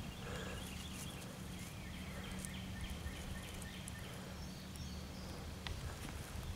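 Faint, steady low rumbling from a cat crouched over a chipmunk it is eating. A few faint high chirps come about two to three and a half seconds in.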